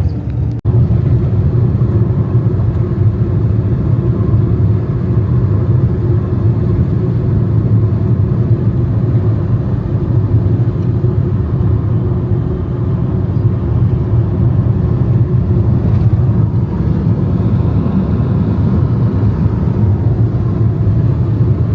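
Steady low rumble of a moving road vehicle, engine and road noise together, with one brief break about half a second in.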